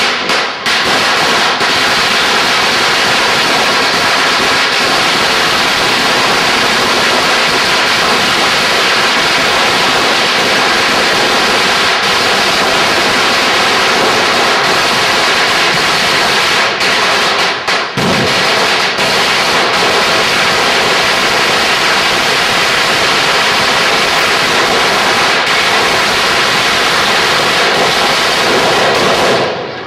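Firecrackers going off on the pavement in a long, dense, unbroken crackle of rapid bangs, with a momentary break partway through.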